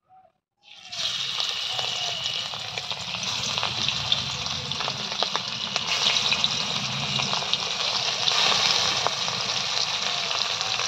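Hilsa fish steaks frying in hot mustard oil in a wok: a loud sizzle that starts suddenly under a second in as the pieces go into the oil, holding steady with scattered crackling pops.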